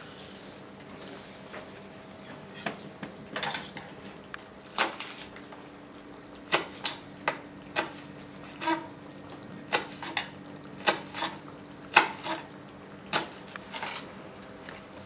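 Kitchen knife chopping fresh herbs on a board: sharp, irregular knocks starting a few seconds in, roughly one every half second to second, over a faint steady hum.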